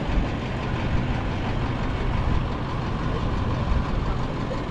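Street traffic noise with a steady low engine hum from idling vehicles.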